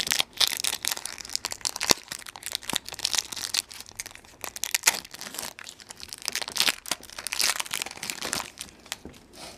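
A 1992 O-Pee-Chee Premier baseball card pack's foil wrapper crinkling and tearing as it is opened by hand: a steady run of sharp crackles and snaps.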